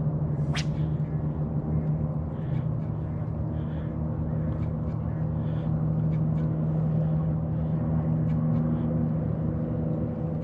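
A steady low motor hum with a constant pitch, with faint scattered ticks over it.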